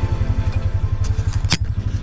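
Honda Pioneer 500 side-by-side's single-cylinder engine idling with a steady rapid throb, under background music that fades out within the first second. A sharp click about one and a half seconds in.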